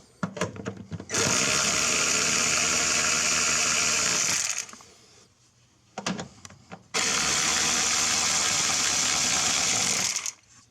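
Husky power ratchet running in two bursts of about three seconds each, spinning off the 10mm nuts that hold a Mazda MX5 Miata taillight, with short clicks and knocks of the tool on the nuts in between.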